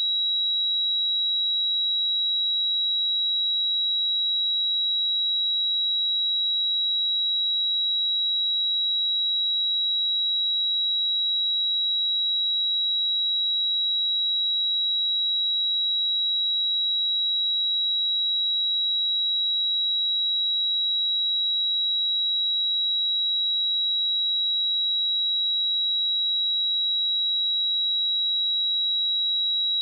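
Steady pure sine-wave test tone at 3871 Hz, a single high-pitched continuous tone at constant level.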